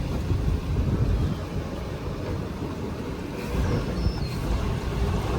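Charter fishing boat's engine rumbling low and steady at slow speed while being maneuvered into a tight dock slip.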